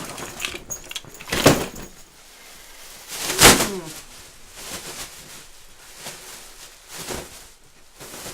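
Two loud thuds, about a second and a half in and again at three and a half seconds, with fainter knocks and handling noises between them.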